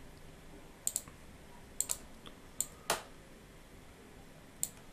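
Computer mouse clicks, short and sharp, several of them in quick pairs, scattered through a few seconds; the loudest single click comes about three seconds in.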